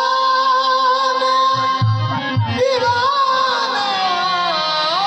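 Qawwali music: a long held sung note over a harmonium, with a few low drum strokes about two seconds in. The melody slides down and rises again near the end.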